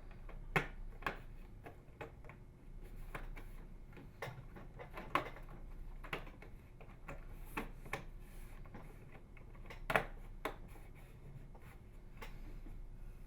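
Plastic inner door trim of a Frigidaire microwave oven being pressed around its edge and snapped into place: a string of irregular sharp clicks and snaps, the loudest about half a second in and again near ten seconds.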